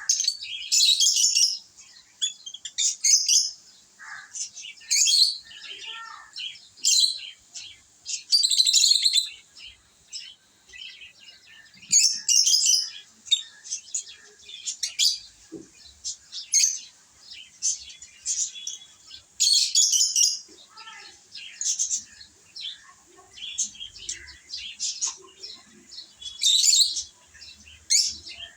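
Pet lovebirds chirping in short, high-pitched bursts, repeated every second or two.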